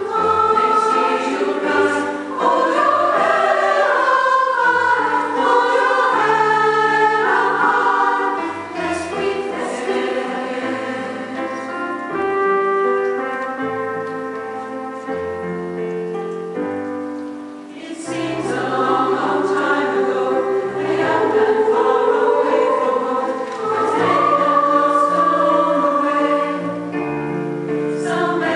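Mixed choir of women's and men's voices singing in harmony with sustained notes. It sings softer through the middle, then swells back louder about two-thirds of the way through.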